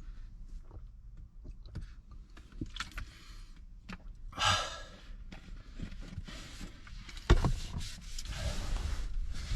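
Small handling clicks and rustles in a car interior, with a breathy sigh-like exhale about four seconds in and a sharp thump about seven seconds in.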